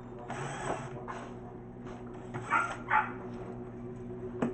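Cordless drill motor running steadily as it drives a screw out of a plastic speaker cabinet. A dog barks a few times over it, loudest about two and a half and three seconds in.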